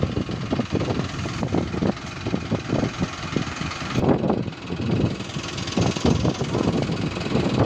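Mahindra diesel tractor engine idling, a steady knocking chug.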